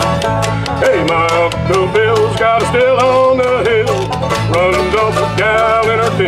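A bluegrass band playing live: acoustic guitars strumming over a bass line that pulses on the beat, with a melody line on top that slides up and down in pitch.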